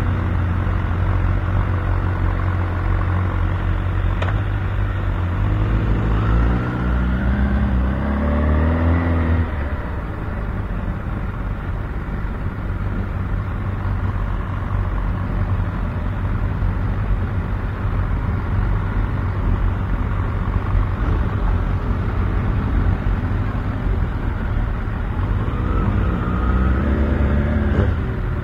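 Sport motorcycle engine running at low speed, with steady exhaust rumble and two rising revs, one about six to nine seconds in and another near the end.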